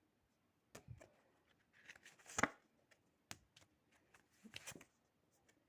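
A few faint, separate clicks and taps of tarot cards being handled and set down, the sharpest about two and a half seconds in.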